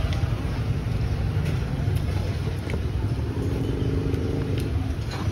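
Steady street traffic: motorbike and car engines running past, a constant low rumble, with people talking.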